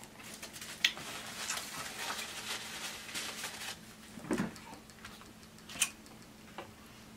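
Close-miked chewing of crispy fried chicken, a dense run of wet crunches for about three seconds. After it come a dull knock and then a single sharp click near the end, as a foam cup with a plastic fork in it is picked up.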